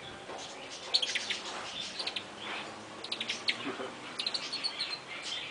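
Pet tamarin monkey chirping: short, high-pitched chirps in quick runs of several, coming about once a second.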